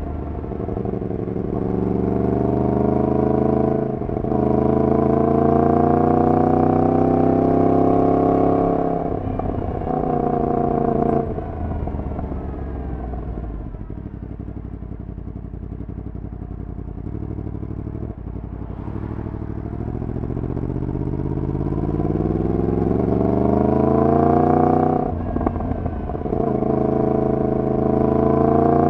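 Yamaha MT-10's crossplane inline-four running through a decat full exhaust system, accelerating with the pitch climbing and dipping at each upshift. The revs fall away for several seconds in the middle, then the engine pulls up through the gears again.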